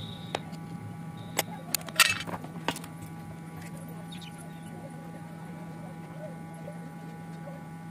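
A few sharp clicks and taps from handling a phone circuit board and tools on a workbench, the loudest cluster about two seconds in, over a steady electrical hum with faint steady whining tones.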